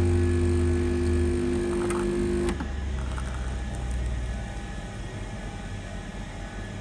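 Home espresso machine's pump humming as it pushes a shot into a mug, with a steady buzzing tone that cuts off about two and a half seconds in. A fainter low hum lingers and dies away a couple of seconds later as the shot finishes.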